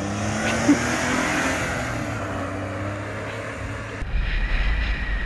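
A 1994 Honda Acty kei truck's small three-cylinder engine running as the truck drives by, with tyre and road noise. About four seconds in, the sound changes to wind buffeting a microphone riding in the truck's bed, with the engine's whine faint underneath.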